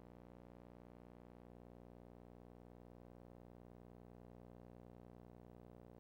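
Near silence with a faint, steady electrical hum made of many even overtones that never changes.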